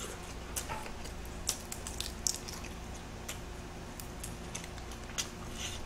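Small, irregular crackles and clicks of cooked shrimp shells being peeled apart by hand, along with chewing.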